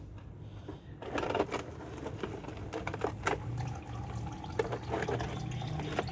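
Engine oil draining out of a 2004 Porsche 911 Carrera 2's sump, starting suddenly about a second in as a rushing pour with irregular spattering.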